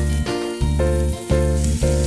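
Background music with evenly repeating bass notes about twice a second, over a faint sizzle of food frying in a pan.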